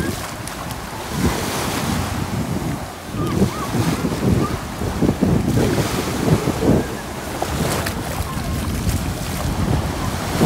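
Small waves washing up and draining back over sand at the water's edge, with wind buffeting the microphone in gusts.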